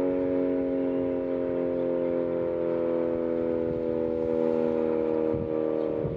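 Sentry 40V2T dual-tone outdoor warning siren sounding a loud steady chord, its pitch slowly dropping.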